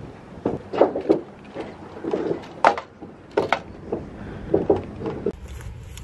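A series of irregular knocks and thumps, a few of them sharp clicks, at uneven intervals.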